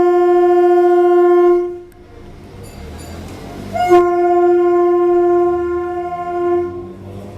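EMU local train's horn: a long steady blast that ends about a second and a half in, then after a short rumbling gap a second long blast on the same note.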